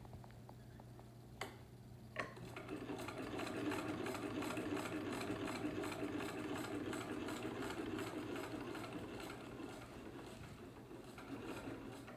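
Hand-cranked British Harrodian sewing machine stitching: its mechanism runs with a steady, even rhythm. It starts after a couple of clicks about two seconds in, is loudest for the next few seconds, and tapers off near the end.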